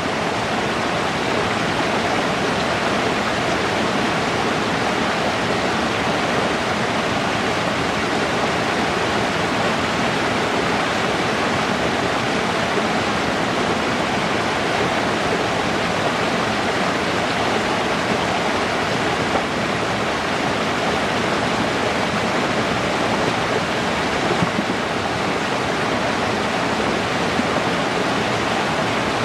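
Fast-flowing water rushing steadily at an even level throughout.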